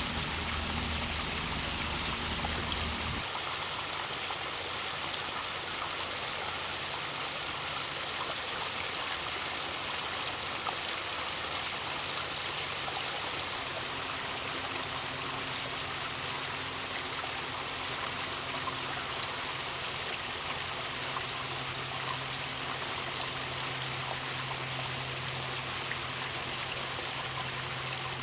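Backyard pondless waterfall: water spilling steadily over rocks into the basin, a continuous splashing trickle.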